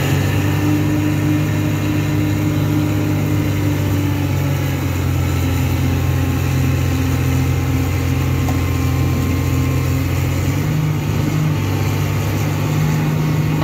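Diesel engine of a Komatsu hydraulic excavator running steadily close by, its note dropping slightly about four seconds in and rising again after about ten seconds.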